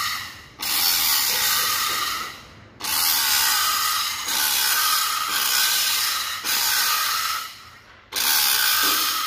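Electric angle grinder with an abrasive disc grinding a steel block in passes: the grinding starts sharply, runs for a second or three, and fades away, about four times.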